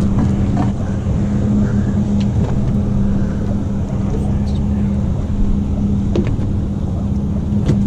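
Boat engine running steadily, a constant low hum with an even drone beneath it, with a few faint clicks.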